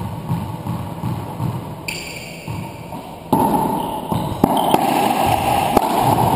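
Racquetball rally in an enclosed court: soft thuds of the ball bounced before the serve, then from about three seconds in a run of sharp cracks as the ball comes off racquets and walls, each ringing in the court's echo.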